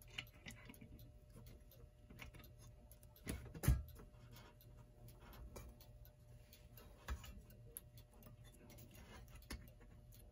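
Irregular light clicks and taps of small clock parts being handled as the clock mechanism is fitted to its front plate, with one louder knock about three and a half seconds in.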